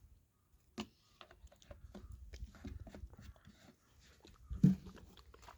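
Light clicks and rattles of a fuel-mixing bottle and a chainsaw being handled while the chainsaw is refuelled, with one louder knock about four and a half seconds in.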